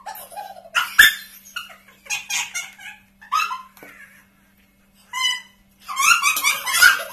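Several women laughing hysterically in high-pitched, squealing bursts with short breathless pauses, a sharp thump about a second in, and louder shrieking laughter near the end.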